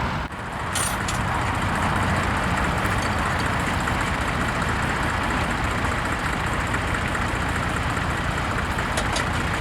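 An engine running steadily, with a brief dip in level just after the start.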